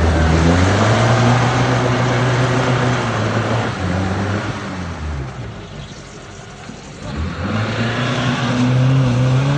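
Off-road 4x4 vehicle's engine running steadily. It eases off about five seconds in and picks up again about two seconds later.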